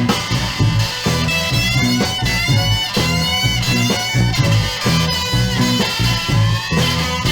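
Instrumental break in a rock song: guitar, with a lead line sliding up and down in pitch in the first few seconds, over bass and a steady beat.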